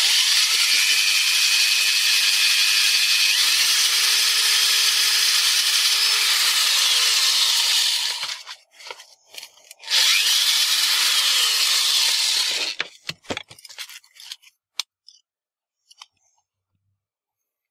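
Electric drill turning a step (cone) drill bit through a sheet-metal panel to enlarge a hole. It runs for about eight seconds, pauses, then runs again for about three seconds, followed by a few light clicks and taps.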